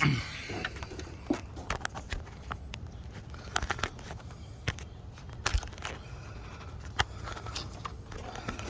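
Irregular light clicks and knocks of hand tools and small metal parts being handled while coil-pack fasteners and parts come off an engine.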